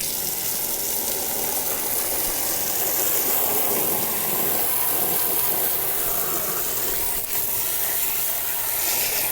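Steady hiss of a water-hose jet spraying onto ATV plastic and blasting off spray paint that a remover has softened.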